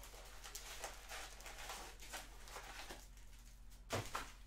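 Foil trading-card packs rustling and crinkling as they are handled and lifted out of a hobby box, with a soft thump about four seconds in.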